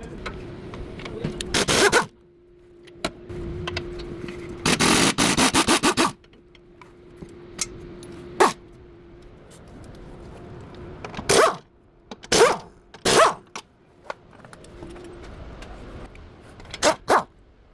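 Mechanic's tool work on the car: several short, loud bursts of metallic noise, one a rapid rattling run of strokes lasting over a second, with single sharp clacks later.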